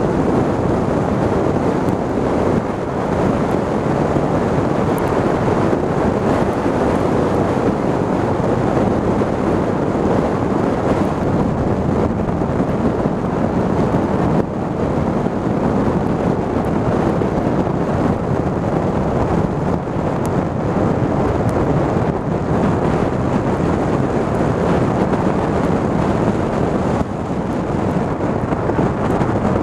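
Loud, steady wind rush buffeting the microphone of a camera on a Yamaha TDM900 motorcycle riding at road speed in a gusty storm, with the ride's road and engine noise underneath.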